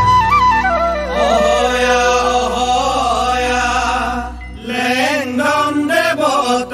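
A bamboo flute's melodic phrase ends about a second in, and a chorus of men takes over singing a Bihu husori together, breaking briefly after about four seconds before going on.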